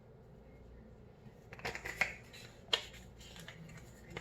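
Salt being added to raw eggs in a bowl: a few short clicks and gritty rasps from the salt container, starting about a second and a half in, with one sharper click a little later.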